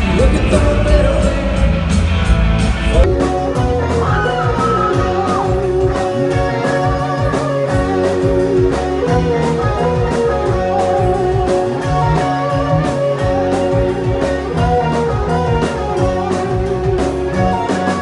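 Live band music recorded from the crowd. An arena concert plays for about three seconds, then it cuts to a small bar band of electric and acoustic guitars, bass and drums playing rock-country over a steady beat.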